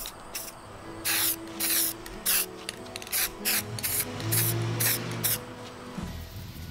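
Aerosol spray-paint can hissing in a string of short bursts as cut-out plywood pieces are sprayed, the bursts stopping a little over five seconds in.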